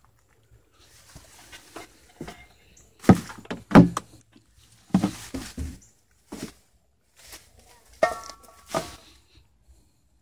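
Irregular thumps and rustling from handling the camera and stepping through brush, with a brief squeak about 8 seconds in. The pump is not yet running.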